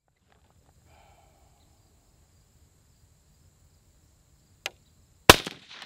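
A single loud rifle shot from a 16-inch-barrelled AR-15 firing .223 ammunition, with a short echoing tail, near the end. A faint sharp click comes just before it.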